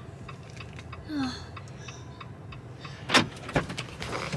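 Steady low rumble inside a car, with a sharp knock about three seconds in, a softer one just after, and light clicks and rustles around them.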